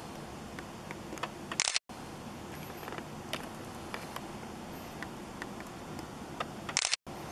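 Handling noise from a handheld video camera: small clicks and rubbing over a steady outdoor hiss. Twice, about two seconds in and near the end, a short louder scrape is followed by a split-second cut-out of the audio.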